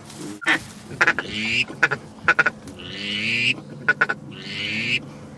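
Ducks quacking: a run of repeated quacks, a new call about every second or so, with short sharp clicks between them.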